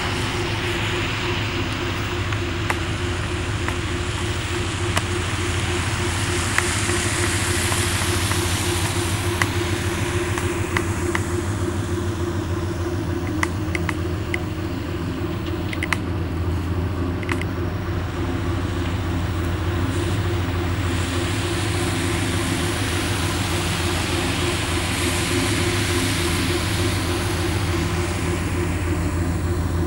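Tugboat engine running steadily, a low hum that holds one pitch. A hiss swells and fades twice over it, and a few sharp clicks and knocks come through.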